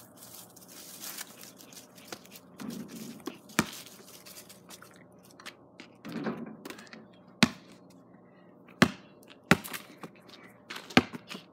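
Basketball knocking against the backboard and rim and bouncing off the ground: a handful of sharp knocks at uneven intervals, with a few duller bumps between them.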